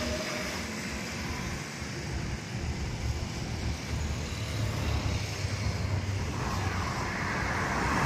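Road traffic noise with a steady low rumble, a vehicle growing louder near the end.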